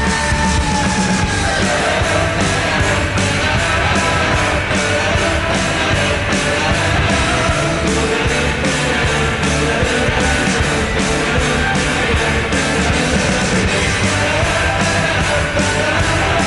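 Loud rock goal-celebration song playing, guitars over a steady drum beat.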